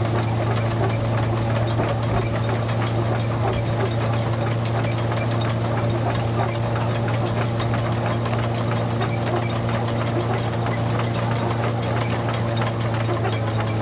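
Vintage tractor engine running steadily at a constant speed, with a strong low drone and an even fast clatter.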